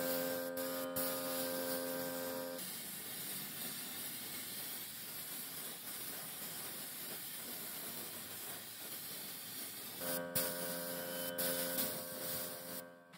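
Gravity-feed compressed-air paint spray gun hissing steadily as it sprays paint. A steady electric hum runs under the hiss for the first two or three seconds and again near the end.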